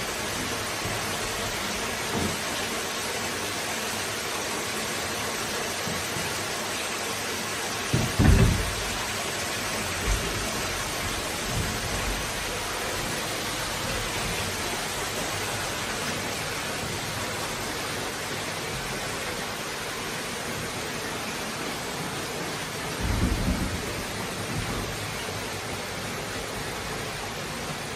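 Steady rushing hiss of water running down an anthracite mine slope, with a few low thumps, about eight seconds in and again past twenty seconds.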